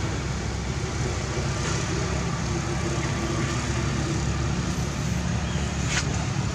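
Steady outdoor background noise: a low rumble under an even hiss, with one sharp click about six seconds in.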